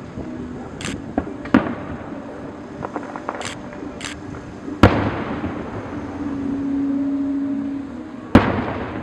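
Fireworks going off: two loud booms of bursting shells, about five seconds in and near the end, each trailing off in a crackling wash, with smaller pops and crackles in between.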